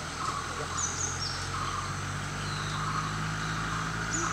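Car engine idling as a steady low hum, with birds giving short high chirps about a second in and again near the end.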